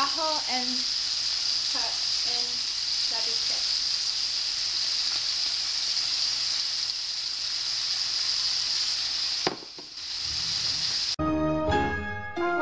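Pieces of beef steak frying in a hot cast-iron grill pan, a steady high sizzle, with chopped onions added on top partway through. The sizzle cuts off about ten seconds in, and music with bowed strings begins shortly after.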